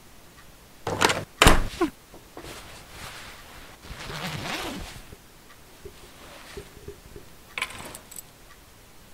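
Two sharp knocks about half a second apart, the second the loudest, followed by softer scraping and rustling and a short clatter near the end.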